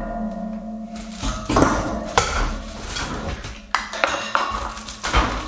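Metal wire-shelving poles and wire shelves clinking and clanking as they are handled and knocked together. A struck pole rings at the start, followed by a series of sharp metal knocks.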